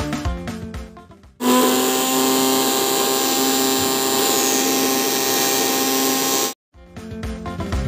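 Electric mixer grinder running at speed, grinding walnuts and radish into a wet chutney paste: a steady motor whine over a churning rush. It starts suddenly about a second and a half in and cuts off sharply about five seconds later.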